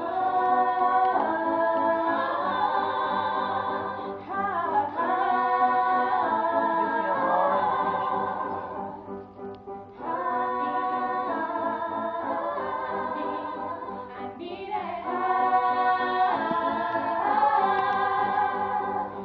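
A group of teenage schoolgirls singing together in held, sustained phrases. The singing breaks off briefly about nine seconds in, then resumes.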